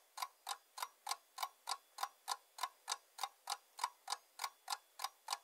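Ticking timer sound effect, like a fast clock: sharp, evenly spaced ticks, a little more than three a second.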